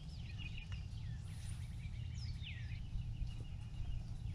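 Wild birds chirping and calling over a low steady background rumble, with a couple of calls that fall in pitch around the middle.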